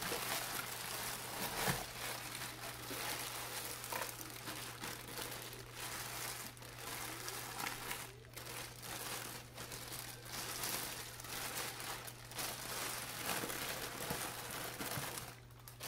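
Thin plastic bags crinkling and rustling continuously as hands pull and crumple them off frozen croaker fish.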